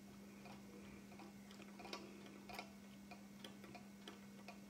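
Near silence: faint, irregular light clicks, a few a second, over a steady low hum.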